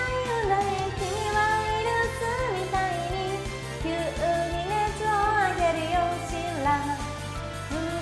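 Upbeat Japanese pop song played as a karaoke track, with a woman's voice singing the melody over the backing.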